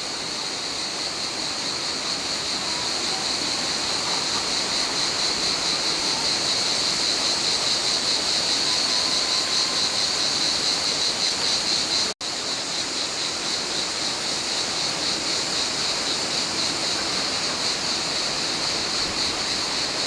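Cicadas droning in a steady, high, pulsing chorus over an even rushing hiss. The sound cuts out for an instant about twelve seconds in.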